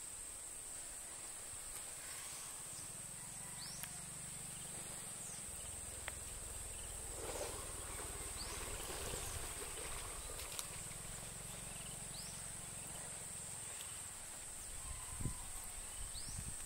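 Steady high-pitched drone of insects, with soft sloshing of mud as a carabao (water buffalo) shifts and rolls in its wallow.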